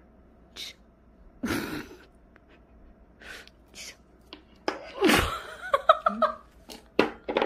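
A Pomeranian sneezing and snorting several times in short noisy bursts, loudest about five seconds in, instead of barking on command.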